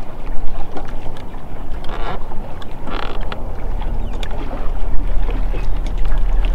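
Wind buffeting the microphone on open water, a steady low rumble over the rush of small waves against the boat, with scattered light clicks from the spinning reel and rod being worked.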